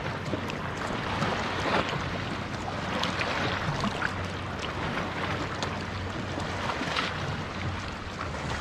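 Lake water lapping and sloshing against a camera held at the waterline, with small splashes and clicks of water close to the microphone.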